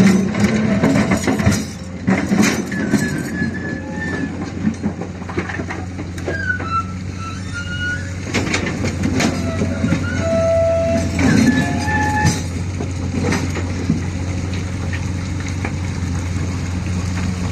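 Excavator's diesel engine running steadily under load, with repeated knocks and clatter of river rock and gravel being loaded into a truck, and a few short high squeals.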